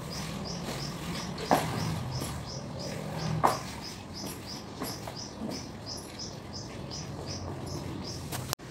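A long run of short, high chirps from a small animal, evenly spaced at about three a second. Two sharp knocks come about a second and a half in and again around three and a half seconds.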